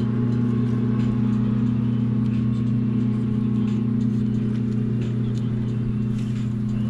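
Electric trolling motor on a fishing kayak running at a steady speed, a constant low hum with a higher whine above it.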